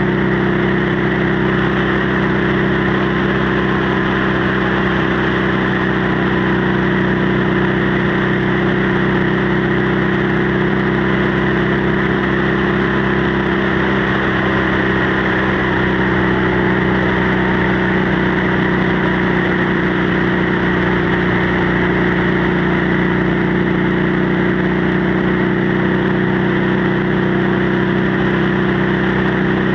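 Motorcycle engine and exhaust running at a steady cruising speed, with the pitch holding even, over a rush of wind on the microphone.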